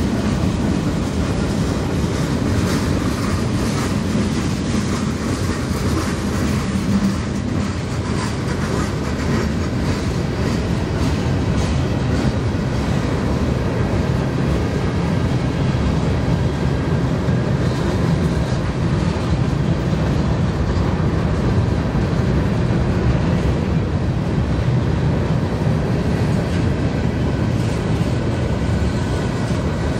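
Freight train cars (covered hoppers, then tank cars) rolling steadily past close by, their steel wheels running on the rails.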